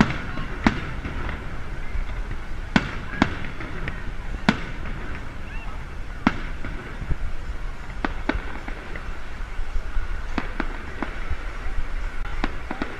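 Aerial fireworks shells bursting overhead: about a dozen sharp bangs and pops at irregular intervals, some close together in pairs.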